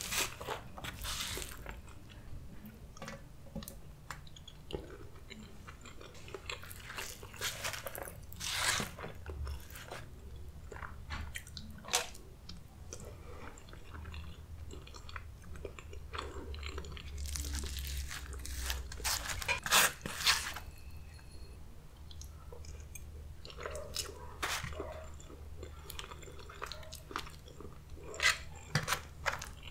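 Close-miked chewing and biting of Mexican food, wet mouth sounds with scattered crunches that come thickest about two-thirds of the way through.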